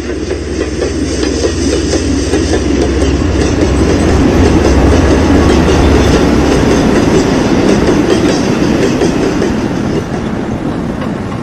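A train running on rails: a steady rumble that builds over the first few seconds and eases off near the end.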